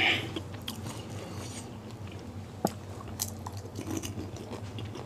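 Close-miked chewing of pani puri, the crisp puri shells crackling and crunching in the mouth, with a sharper crack about two and a half seconds in.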